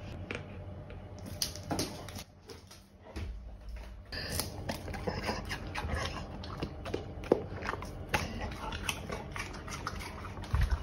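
Golden retriever chewing pear: a run of short crunching clicks that pauses briefly about two seconds in, then goes on densely from about four seconds.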